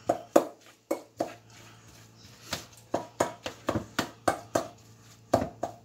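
Salmon being mashed up in a bowl with a utensil: a run of irregular knocks and taps against the bowl, pausing briefly about a second and a half in before carrying on.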